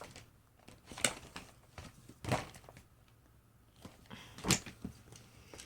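Rustles and light taps from a shop item and its packaging being handled, with three sharper clicks about one, two and a half, and four and a half seconds in.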